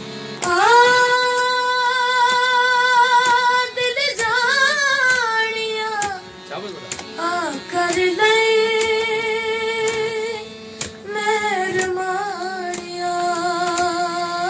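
A boy's high voice singing a slow South Asian vocal piece, holding long wavering notes with ornamented runs, over a steady sustained instrumental accompaniment.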